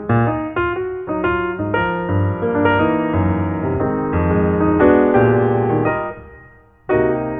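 Background piano music: a melody over chords, fading briefly before new chords strike near the end.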